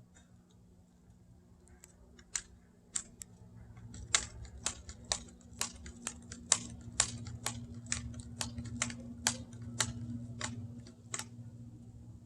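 BB gun being worked between shots: a run of light, sharp clicks about two a second, starting about two seconds in and stopping near the end.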